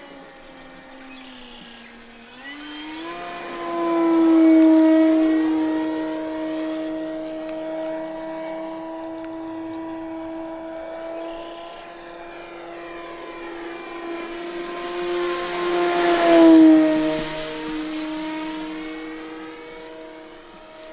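Electric RC airplane's motor and propeller running, a steady whine flying overhead. The pitch rises about two and a half seconds in. It grows loud on two close passes, around four to five seconds and again around sixteen seconds, and the pitch drops as it goes by the second time.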